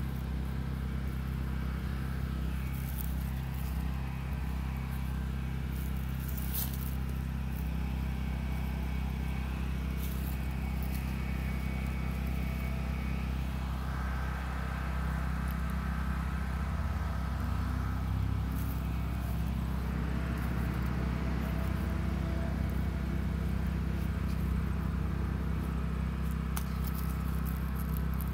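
Steady low hum throughout, with faint scattered rustling and scraping of a gloved hand working onion sets into loose garden soil.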